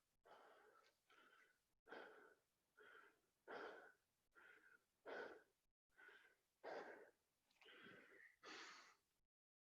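A person breathing hard and fast after burpees, heavy breaths in and out about every second and a half, out of breath from the exercise.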